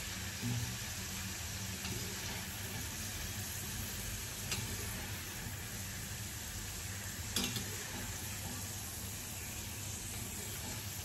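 Sweet corn kernels sizzling steadily in hot oil in a steel kadai as they are scooped out with a slotted spoon, fried golden brown. A few light metal clinks from the spoon against the pan and wire strainer.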